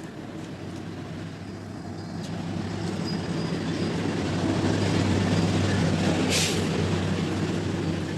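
A motor vehicle's engine running with a low, steady hum, growing louder to a peak and then easing off as it passes close by. A short hiss sounds about six seconds in.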